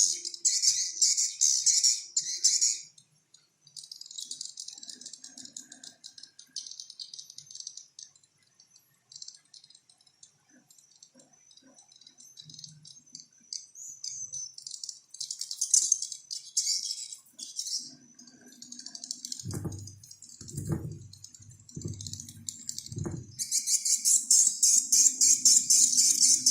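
A bird's rapid, high chattering call in bursts of fast clicks, loud at first, fainter through the middle, then loud again near the end. Four low thuds come shortly before the chatter returns.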